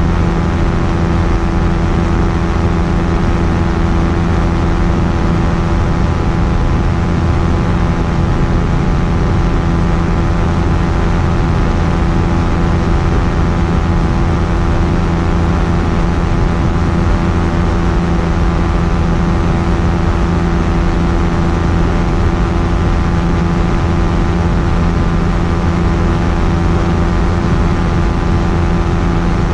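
Quicksilver Sport 2S ultralight aircraft's engine and propeller running at steady power, the pitch unchanging throughout.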